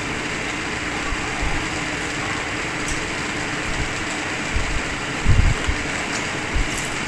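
Steady background hiss with a faint low hum, over which come a few soft clicks of chewing by hand-fed mouthfuls and a low bump a little after five seconds in.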